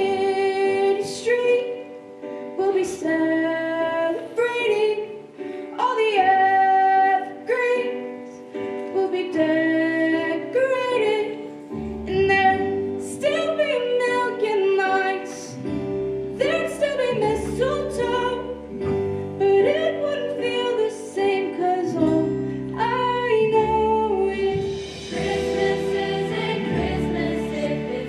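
A girl's solo voice singing a slow melody into a microphone, over held chords and deep bass notes from an instrumental accompaniment.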